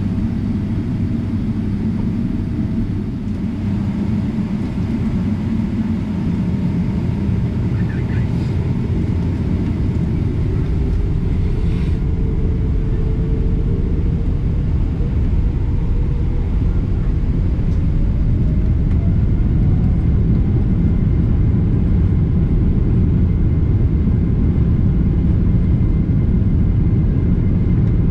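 Cabin rumble of a Boeing 777-300ER taxiing, with its GE90 engines running. The rumble grows louder through the middle of the clip as a faint whine rises in pitch, the engines spooling up.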